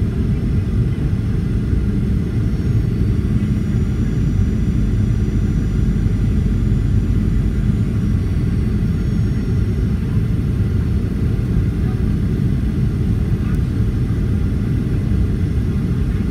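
Steady low rumble of a Boeing 737-800 in flight, its CFM56-7B engines and the airflow heard from inside the cabin beside the wing.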